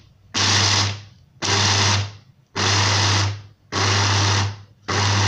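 Small electric blade grinder chopping roasted peanuts, run in short pulses: five bursts of motor whir, each under a second, about one a second with short pauses between.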